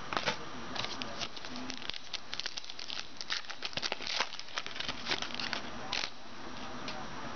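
Trading cards being handled: a run of light clicks and rustles of card stock and packaging as the cards are flipped through, stopping about six seconds in.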